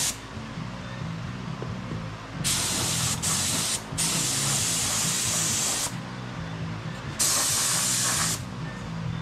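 Gravity-feed paint spray gun hissing as it sprays primer, with the trigger pulled in several passes of a second or two and short pauses between them. A steady low hum runs underneath.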